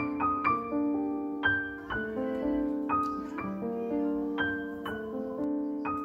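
Background piano music: single notes and held chords struck about once or twice a second, each ringing on and fading.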